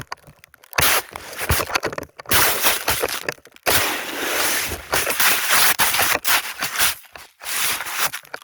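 Crunching and scraping of snow right against a phone's microphone as the phone is slammed into and pushed through snow. It comes in several loud bursts that cut off abruptly.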